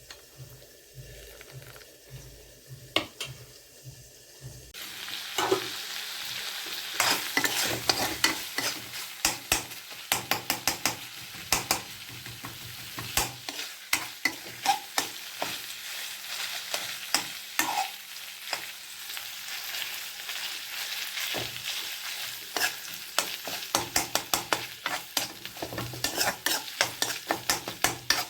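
Fish and bamboo shoot curry sizzling in a pan while being stirred with a metal spoon. The sizzle swells about five seconds in, and rapid clicks and scrapes of the spoon against the pan run through the rest.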